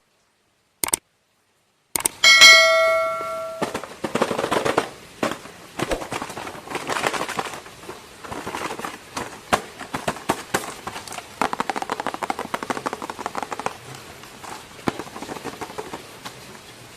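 A bell-like ding rings for about a second and a half, then plastic toy packaging crackles and rustles with many small clicks as it is opened and handled.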